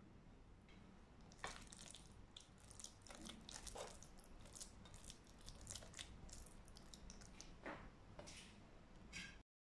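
Faint wet squishing of a ground chicken and vegetable filling being mixed and pressed with a fork and a silicone spatula, with soft scattered scrapes and taps of the utensils against the bowl. The sound cuts off suddenly near the end.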